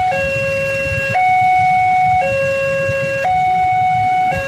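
Railway level-crossing warning alarm sounding with the barrier down: an electronic two-tone signal alternating between a lower and a higher note about once a second, warning that a train is approaching.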